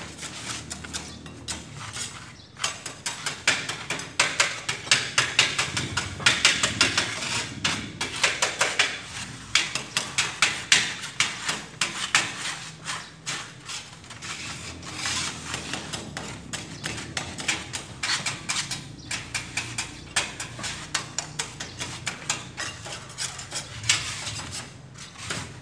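Hand sanding of a skim-coated concrete wall with number 100 sandpaper: quick back-and-forth scraping strokes, several a second, with more than one sander working at once.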